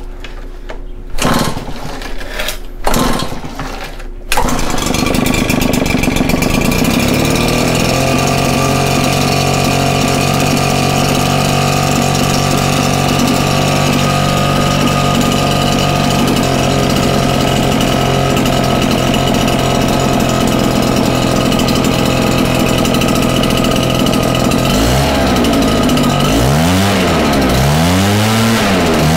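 Redmax EBZ8500 backpack blower's two-stroke engine being pull-started after long disuse: two short bursts on the starter cord, then it catches about four seconds in and runs steadily, settling into an even idle. Near the end it is revved up and down repeatedly, about once a second.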